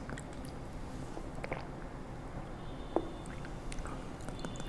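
A person drinking water: faint swallowing and a few small clicks over a low room hum.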